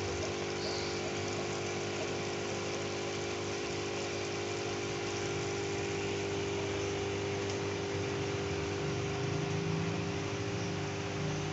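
Aquarium pump humming steadily, an even electric drone with a few fixed tones and no change in pitch or level.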